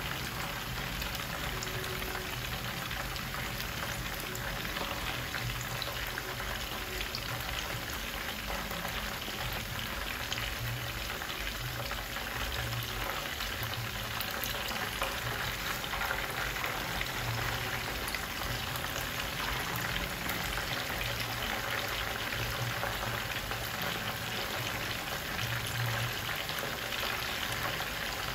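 Pieces of croaker fish, fried from frozen, sizzling in shallow oil in a frying pan over low heat: a steady sizzle with fine crackling. The cook puts the strong bubbling down to ice still on the fish.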